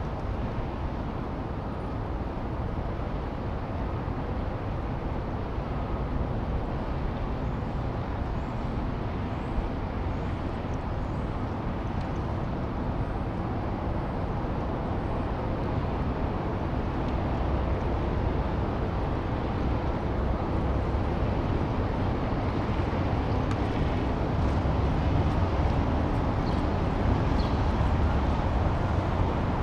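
Steady low outdoor rumble, a few decibels louder over the second half, with no distinct rhythm standing out.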